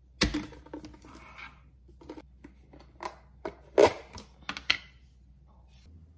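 Several sharp knocks and clicks of kitchen things being handled on a countertop: a wooden spoon picked up, a digital kitchen scale and a glass mug touched. The loudest knock comes just before four seconds in.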